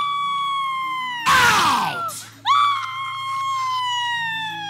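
A woman screaming: two long, high-pitched held wails that sink slightly in pitch, broken about a second in by a shorter, harsh, rough scream.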